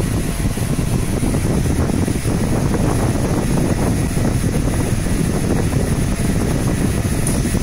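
Raycus 20 W fiber laser marking machine running while it engraves a photo onto a metal pendant: a steady hum and rush with a thin, constant high whine.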